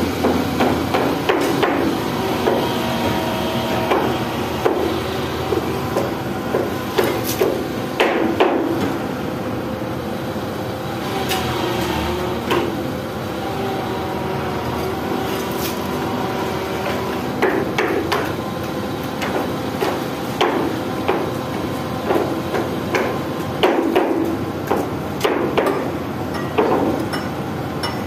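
Hammer blows on steel, as pins are driven at a Hitachi EX200 excavator bucket during a bucket change: sharp metallic clanks that ring, coming in irregular clusters. The excavator's diesel engine runs steadily beneath.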